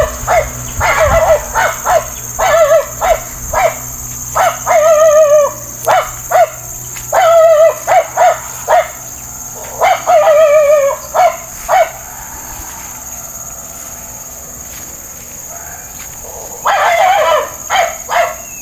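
An animal calling over and over: short barks mixed with longer, wavering cries. It goes quiet for about five seconds past the middle, then starts again near the end.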